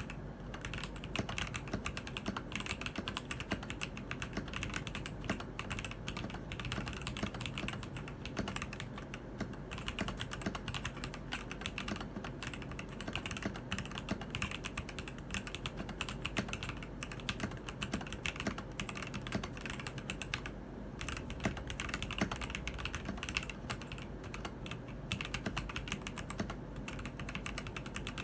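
Continuous typing on a Keydous NJ80 mechanical keyboard fitted with TTC Gold Pink linear switches: a dense, uneven stream of key strikes at an ordinary typing pace.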